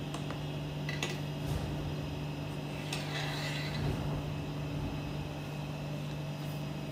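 Steady low hum of kitchen machinery, with a couple of light metal clicks and a brief scrape about three seconds in as a thin metal board is worked under a cut ganache slab on a stainless guitar cutter.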